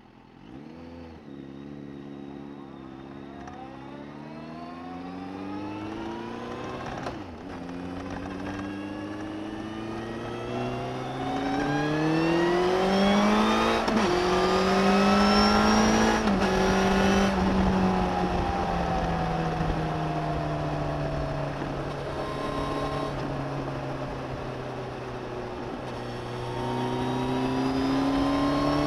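Suzuki GSX1250FA's inline-four engine, heard from under the seat, pulling hard through the gears. The revs climb, drop at a shift about seven seconds in and again at about fourteen, fall away slowly for about ten seconds as the bike slows, then climb again near the end.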